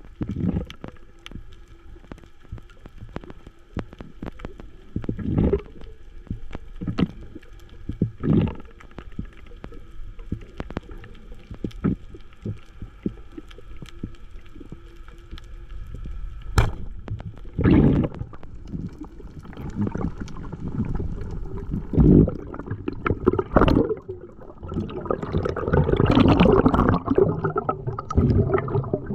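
Underwater sound picked up through an action camera's waterproof housing: muffled water movement that comes in repeated low whooshes, with scattered sharp clicks and a faint steady hum. The water noise grows louder and churning for the last few seconds.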